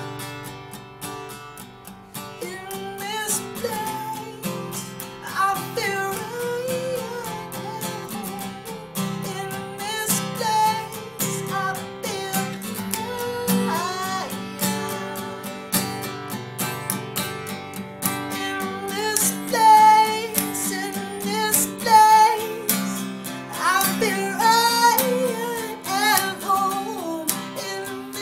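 Acoustic guitar strummed in steady chords while a man sings a melody over it, phrase by phrase: a live, unplugged run-through of a song.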